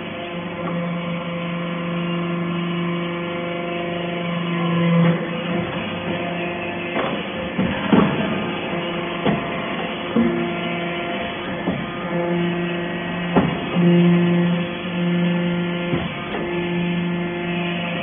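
Aluminium-chip briquetting press running: its hydraulic system hums at a steady pitch that drops out and comes back every second or so, with sharp metallic knocks every few seconds as it compacts chips and pushes briquettes along the chute.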